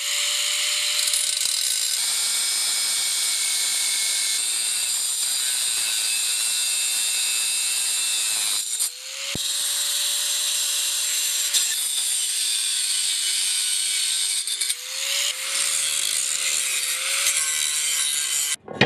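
Handheld power tool cutting through a piece for the floor reinforcement, its motor whine holding steady under load. It stops twice and spins back up, then cuts off suddenly near the end.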